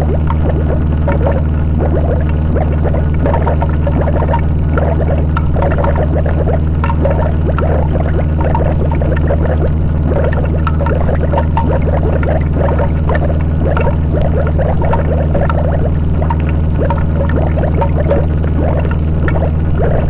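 Harsh noise music: a loud, unbroken wall of distorted sound over a steady low drone, with a dense, churning texture full of small clicks on top.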